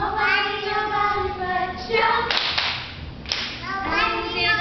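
Children singing, broken about halfway by a short, sharp noisy burst before the singing resumes.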